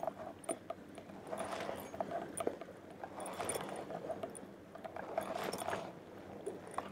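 Sea waves washing against a concrete breakwater, swelling and fading about every two seconds, with scattered small clicks and taps.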